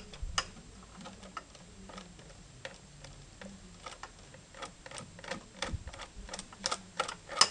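Faint, irregular clicks and taps of a nut driver turning out an 8 mm screw from a GY6 scooter engine's cooling-fan shroud. The clicks come closer together near the end.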